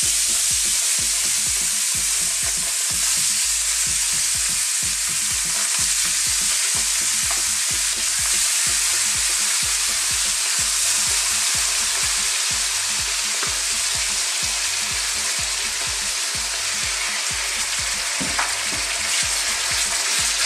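Marinated chicken pieces deep-sizzling in smoking-hot oil in a thin wok: a steady, dense frying hiss. A couple of light clicks from a utensil turning the pieces come near the end.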